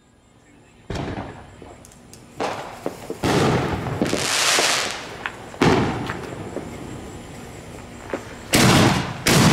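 Consumer fireworks going off: a series of about six sudden loud booms, each trailing off in a fading rumble, with the last two close together near the end.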